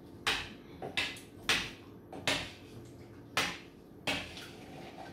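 A spoon knocking and clinking against a stainless steel saucepan and a bowl as diced potato is spooned into the soup: about seven separate sharp knocks, irregularly spaced.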